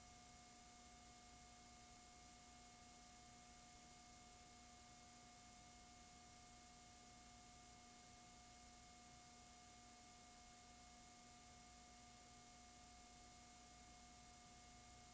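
Near silence: a faint steady hiss with a few faint steady hum tones.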